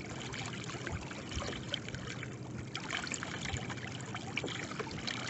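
Small ripples lapping and trickling against a kayak's hull, with scattered little splashes and drips.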